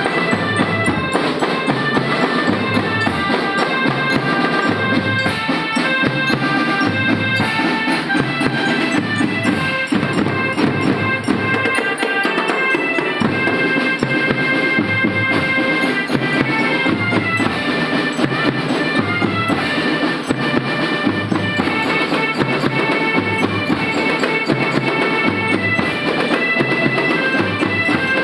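School marching drum band playing: wind instruments carry a sustained melody over a steady beat of bass drums and other percussion.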